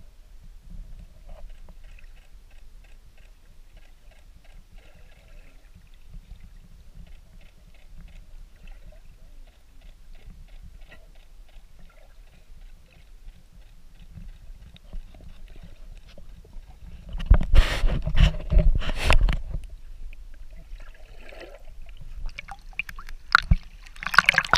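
Water heard through a submerged camera housing while snorkeling: a muffled low rumble with faint rapid ticking. About 17 seconds in comes a couple of seconds of loud splashing and sloshing, and more sharp splashes near the end as the camera comes up at the surface.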